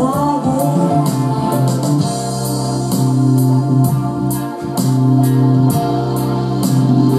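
Pop song with singing and a steady beat, played through a mini hi-fi speaker system.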